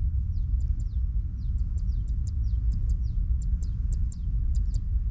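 Small birds chirping over and over, short high calls and quick falling notes several a second, over a steady low rumble.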